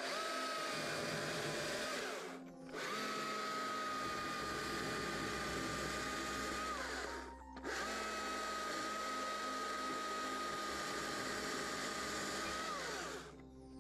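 Stihl cordless battery chainsaw running in three bursts, its electric motor giving a steady high whine. The second and third bursts end with the whine falling away as the chain coasts to a stop.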